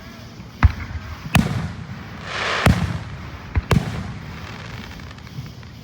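Fireworks going off: about five sharp bangs spread over three seconds, with a brief hiss just before the middle one.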